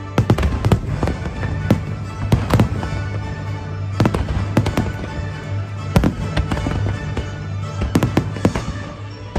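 Fireworks shells bursting overhead, a rapid, uneven string of sharp bangs several a second at times, over the show's music with a steady low note underneath.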